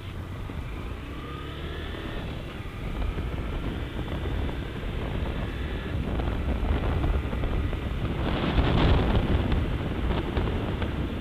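Honda CG 160 Fan motorcycle's single-cylinder engine accelerating, its pitch rising in the first few seconds, with wind rushing over the microphone that grows louder about eight seconds in and again near the end.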